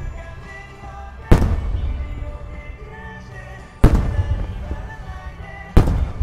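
Three aerial firework shells bursting with loud bangs a couple of seconds apart, each followed by a rumbling echo, over recorded music playing throughout.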